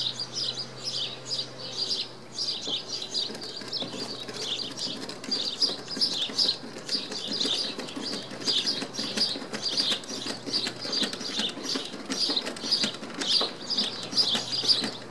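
Birds chirping over and over, a few short calls a second, with the fainter sound of a hand-geared screwdriver driving a waxed screw through the gunwale into the canoe's Kevlar hull.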